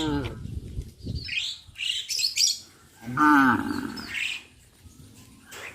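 A cow moos once, a strong call about three seconds in, with the tail end of another moo right at the start. Birds chirp in short high calls around it.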